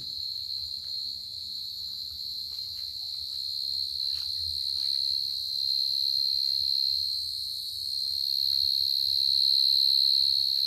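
Field cricket (dế mèn) giving its steady, high-pitched calling song, a male singing from its burrow. It grows louder toward the end as the listener closes in, with faint rustles from dry grass underfoot.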